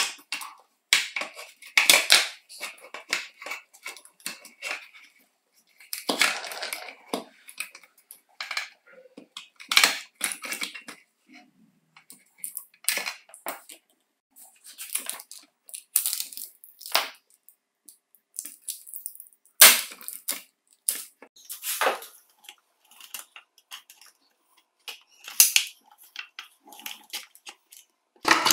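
Plastic housing and battery pack of an Electrolux Ergorapido cordless stick vacuum being handled and pried apart: irregular clicks, knocks and short scrapes of hard plastic, with brief pauses between.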